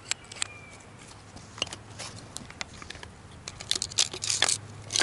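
Small survival-kit items being handled: scattered light clicks, then from about three and a half seconds in a denser run of crinkling and clicking as gear is rummaged out of a wide-mouth plastic Nalgene bottle.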